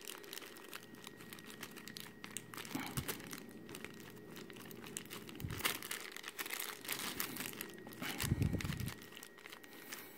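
Clear plastic wrapping crinkling and crackling as it is worked off a PVC figure by hand, in irregular rustles throughout. A dull low thump comes about eight seconds in.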